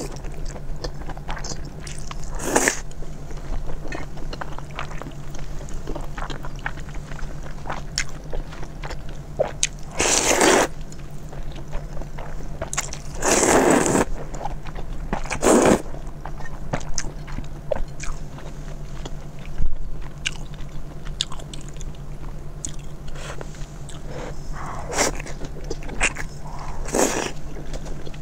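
Close-miked eating: wet chewing with many small clicks and smacks. Twice, around 10 and 13 seconds in, there are longer slurps of glass noodles from the soup, with shorter slurps later. A steady low hum runs underneath.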